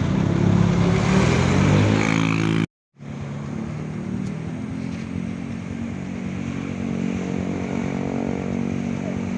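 Tour bus engine accelerating past, pitch rising, cut off abruptly about two and a half seconds in. After a brief gap, a steadier engine drone of traffic continues.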